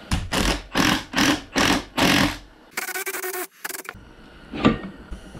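Cordless Milwaukee impact wrench hammering in about six short trigger bursts, then a longer run, as it drives a two-jaw puller's forcing screw to pull the swing-axle tube off a VW Beetle transaxle. A single sharp knock comes later on.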